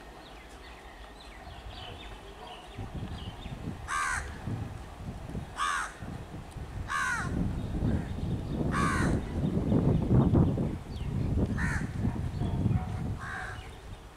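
Crows cawing about six times over a low rumble that builds from about three seconds in, is loudest about two-thirds of the way through, then eases. The rumble comes from an ICF MEDHA three-phase electric multiple unit approaching along the track.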